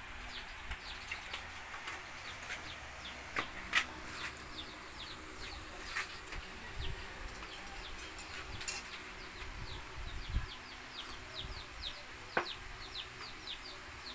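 Birds chirping over and over in short, high, falling notes, against a faint steady low hum, with a few sharp light clicks.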